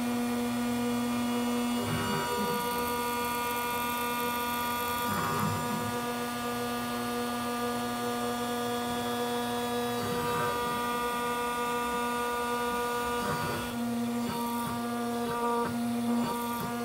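Small CNC mill's router spindle running with an end mill clearing HDPE plastic: a steady, even hum-whine. In the last few seconds it turns choppy, with rapid breaks.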